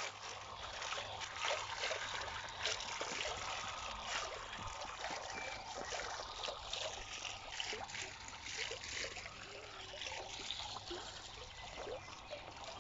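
Garden fountain splashing and trickling steadily into its basin.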